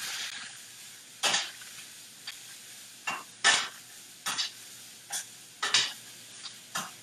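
Chicken pieces sizzling in a hot pan as they are stirred and turned, with repeated sharp scrapes and clinks of the utensil against the pan.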